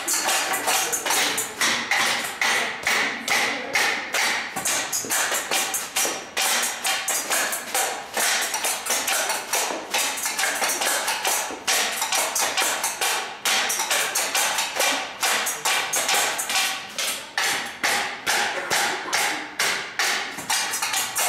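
Group percussion on canteen items: stainless steel dish covers, tabletops and other objects struck and tapped together in a fast, steady, repeating rhythm.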